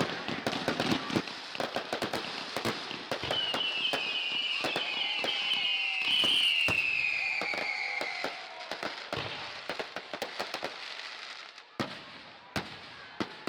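Fireworks display: dense crackling pops, with a high whistle falling slowly in pitch a few seconds in. The crackling thins out to a few scattered pops near the end.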